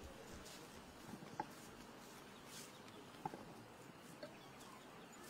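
Near silence: faint outdoor ambience with two brief, sharp little sounds about a second and a half and three seconds in.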